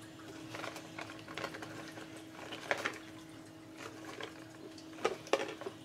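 Faint scattered clicks and light rustling of small objects being handled, with a couple of sharper clicks near the end, over a steady faint hum.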